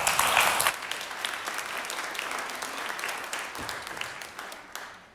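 Audience applauding, loudest at first and gradually dying away near the end.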